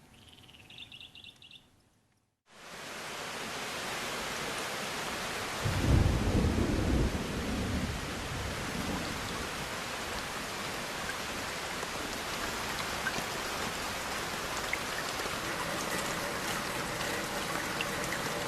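A few brief high chirps, then the sound cuts out for a moment. Steady heavy rain starts suddenly and keeps on, with a low roll of thunder a few seconds after it begins.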